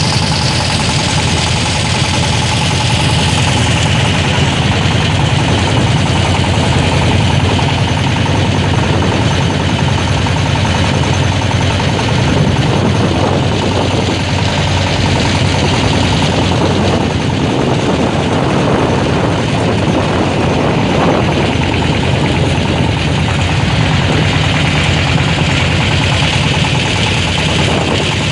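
Engine of a wooden river motorboat running steadily under way, with an even rapid chug, over a constant hiss of water and wind.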